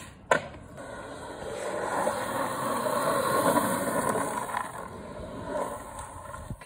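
Powell Peralta G-Slide 59 mm 85a urethane skateboard wheels rolling and sliding on asphalt: a scraping hiss that swells to a peak about halfway through, then fades. A sharp click comes just after the start.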